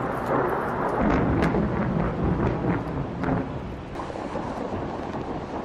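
Thunder rumbling, with sharp crackles over the first few seconds, then dying down to a quieter rumble after about four seconds.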